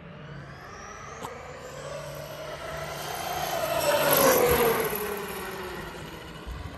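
Traxxas E-Revo 2.0 electric RC monster truck speeding past on asphalt. Its motor and drivetrain whine climbs in pitch and gets louder as it approaches, is loudest a little past four seconds in, then drops in pitch and fades as it runs away.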